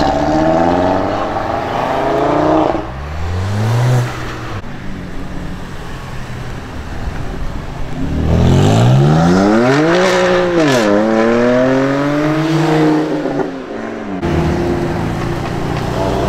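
A sequence of tuned performance cars accelerating hard: first an Audi RS3's turbocharged inline five-cylinder pulls away, its pitch climbing through upshifts. About halfway through, a BMW M2's turbocharged straight-six revs up loudly, drops at a gearshift and climbs again. In the last couple of seconds a BMW M4 convertible's engine runs at a steady pitch.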